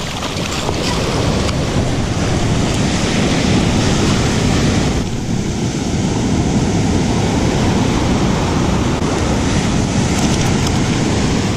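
Ocean surf washing up the beach, with wind buffeting the microphone.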